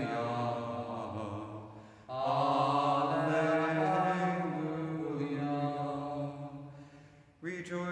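A man's voice singing the Gospel acclamation unaccompanied, in long held notes. One phrase fades out about two seconds in, a second runs until about seven seconds and fades, and a third begins near the end.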